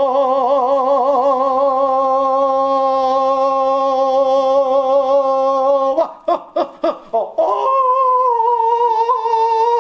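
A single voice sings wordlessly. It holds one long note with a wavering vibrato for about six seconds, breaks into about five quick choppy vocal pulses, then holds a second long note.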